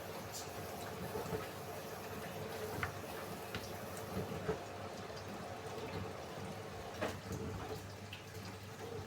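Samsung AddWash WW70K5410WW washing machine in its drain phase: water trickling and dripping inside the machine over a steady low hum, with scattered small clicks.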